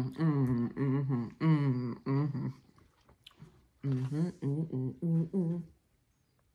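A woman humming a tune in short, rhythmic notes, in two phrases with a pause of about a second between them.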